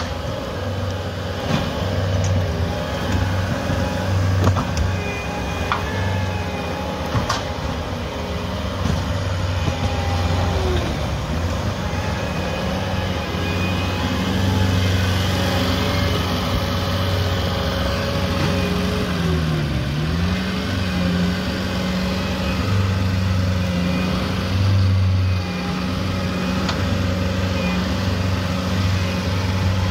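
Caterpillar 249D compact track loader's diesel engine running steadily at working throttle while it grades dirt, with a few light clanks. About twenty seconds in, the engine pitch dips briefly as it lugs under load, then comes back up.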